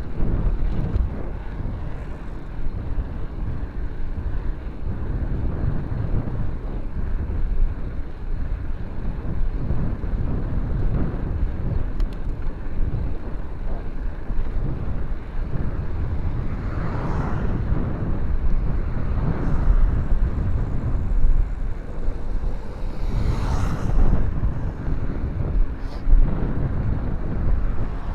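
Steady low rumble of wind and road noise on a moving microphone, with a few brief louder noisy swells near the middle and towards the end.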